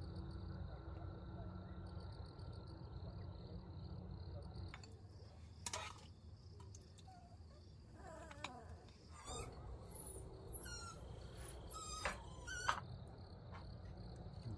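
Faint natural ambience: a steady high insect drone over a low rumble, with a few short bird chirps in the second half and an occasional click.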